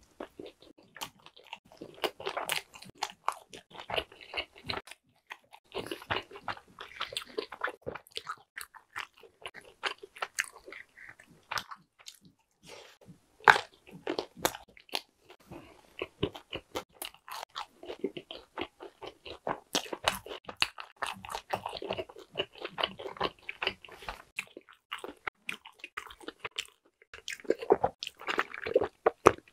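Close-up crunchy biting and chewing of thick pan pizza crust, in irregular clusters of crisp crackles and wet mouth sounds. Near the end, a sip through a straw from an iced drink.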